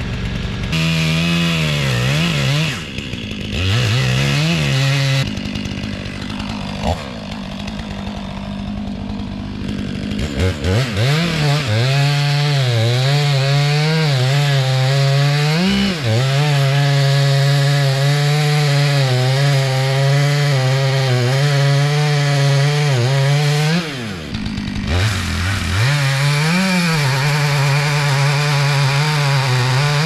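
Stihl MS 500i two-stroke chainsaw with a 32-inch bar felling an oak trunk: a few throttle blips, idling for several seconds, then held at full throttle in a long steady cut from about ten seconds in. It drops back to idle briefly near twenty-four seconds, then revs up and cuts again.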